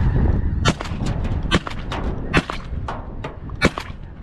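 Wind rumbling on the microphone in a snowstorm, with a string of short, sharp clicks and knocks, about a dozen, irregularly spaced from just under a second in.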